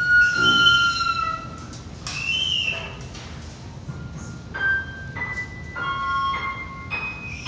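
Instrumental music: long high held tones that slide slightly in pitch, then from about four seconds in a string of separate held notes stepping between different pitches.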